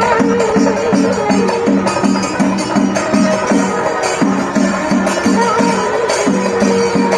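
Music with a quick, steady percussion beat of about four strokes a second under a held melodic tone.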